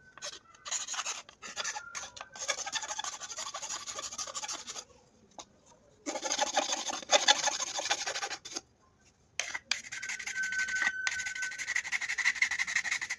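Rasping, rubbing strokes of a file working a workpiece, in three spells of a few seconds each with short pauses between.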